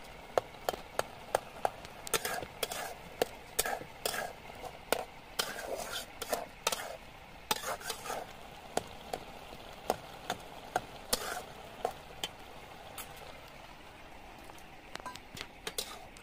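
A metal ladle stirring a pot of chopped colocasia leaf curry, clinking and scraping against the metal pot over a steady sizzle of the cooking greens. The clinks come thick and fast for about twelve seconds, then thin out, with a few more near the end.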